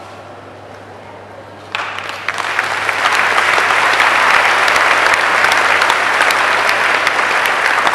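Audience applauding, starting suddenly about two seconds in and swelling within a second to steady, dense clapping.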